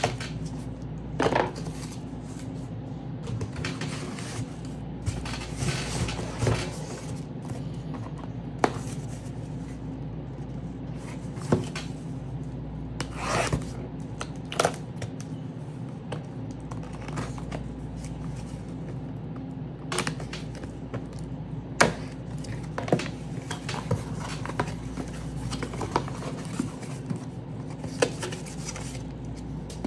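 Handling noises from unboxing a car audio speaker: rubbing and scraping of packaging, with scattered sharp clicks and knocks, over a steady low hum.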